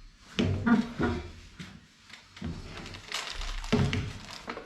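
Short knocks, clicks and rustling of objects being handled, as if a drawer or cupboard were opened or things set down.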